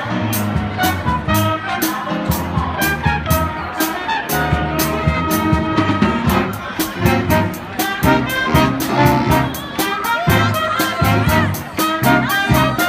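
Jazz band playing a swing tune: brass and trumpets play melody lines over a steady ticking beat.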